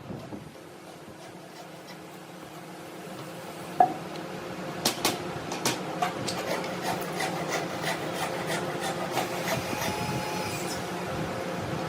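A woodworking machine running with a steady hum while wood rubs and scrapes against it. A sharp knock comes about four seconds in, followed by repeated knocks as the sound grows louder.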